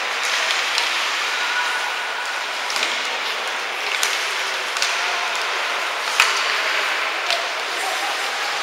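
Ice hockey play on the rink: a steady scraping hiss of skates on ice, with scattered sharp clacks of sticks and puck; the loudest knock comes about six seconds in.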